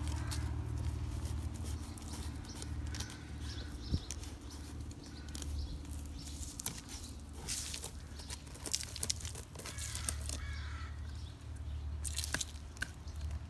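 A whippet rooting and chewing at twigs and dry leaf litter: irregular crackling and snapping clicks, over a steady low rumble. A bird calls a few times in the background.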